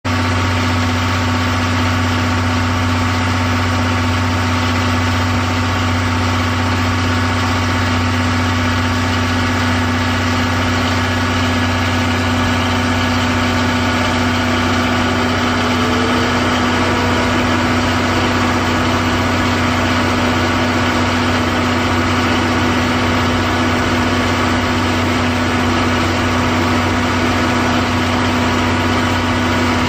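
Underfloor DMF15HZ-G diesel generator engine of a JNR Suhafu 14 coach running at a steady speed, with a constant low hum, supplying the train's service power for air conditioning and lighting.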